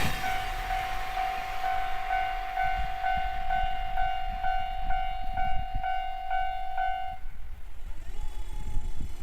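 Japanese level-crossing warning bell ringing, a steady electronic tone pulsing about twice a second over a low rumble, then stopping about seven seconds in.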